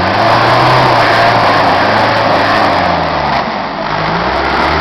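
Troller 4x4's engine revving under load as it crawls over a rutted dirt obstacle; the pitch drops and picks up again about three seconds in.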